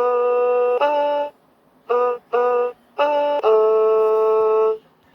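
Fisher-Price Link Squad panda toy playing an electronic melody through its small speaker: two held notes, a short pause, two quick notes, then a long held note.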